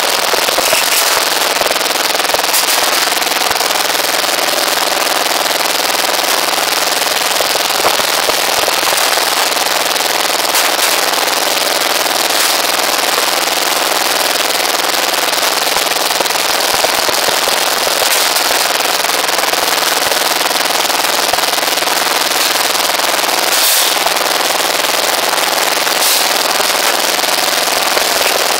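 Small stationary engine running steadily at a constant speed beside a rebar bending machine, with a few sharp metal clanks as steel reinforcing bars are bent.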